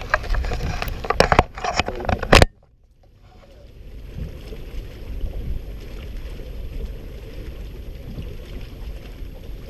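Loud irregular knocks and bumps for about two seconds that cut off abruptly, then a steady wash of wind and choppy lake water around a boat.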